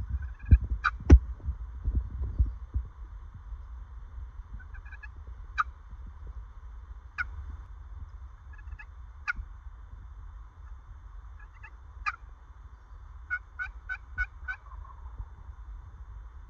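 Wild turkey calling: single short notes every second or two, then a quick run of about five notes near the end. A few sharp knocks come in the first second, over a steady low rumble.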